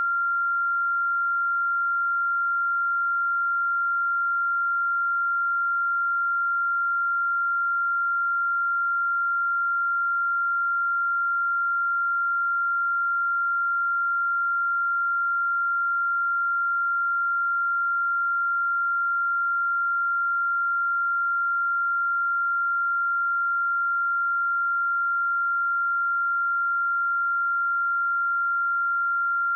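A pure 1385 Hz sine-wave test tone, held at one steady pitch and level throughout.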